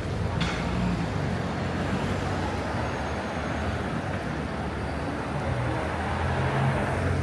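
Street traffic: motor vehicles running close by in a steady wash of road noise, with a brief sharp click about half a second in.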